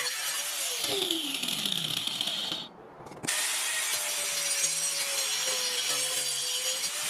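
Angle grinder with a wood-cutting disc running and cutting into wood: a steady motor whine under a rasping cutting noise. The sound drops away briefly about three seconds in, then resumes.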